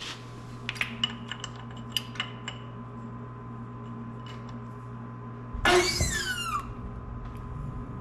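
Front end of an Oliver 1365 tractor being lowered back onto its newly installed hub and wheel. A steady hum and a few light clicks, then a loud squeal about halfway through that slides down in pitch over about a second as it settles.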